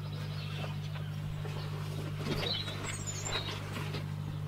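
Small birds chirping a few times, mostly around the middle, over a steady low hum.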